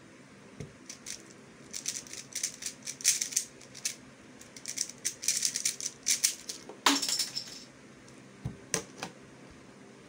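X-Man Tornado V1 3x3 speedcube being turned fast: quick runs of plastic clicking and rattling turns, with the loudest clack about seven seconds in and two single clicks near the end.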